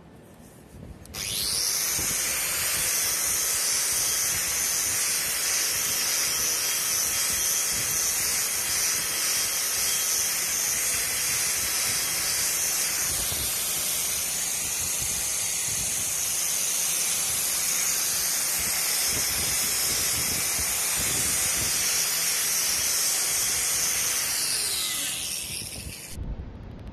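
Angle grinder with a knotted steel wire wheel starting up about a second in, then running at full speed with a high whine while the wire brush is run against the edge of a granite slab. The motor winds down with falling pitch near the end.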